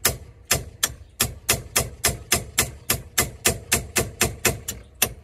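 Light hammer tapping a pin punch in quick, even strikes, about three to four a second, driving a pin into the gear shift lever on the steering column.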